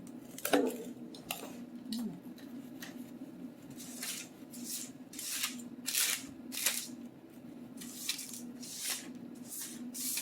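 Knife slicing cooked chicken on a cutting board: a run of short, crisp cutting strokes, about two a second from around four seconds in. A sharper clink comes about half a second in, and a steady low hum runs underneath.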